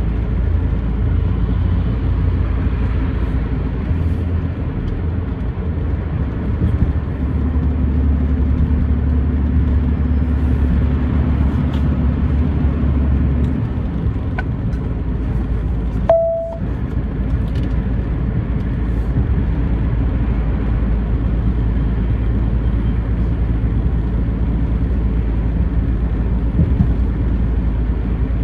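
Steady low rumble of a truck's engine and tyres at road speed, the low engine note growing stronger for about ten seconds before easing. A short single beep sounds about halfway through.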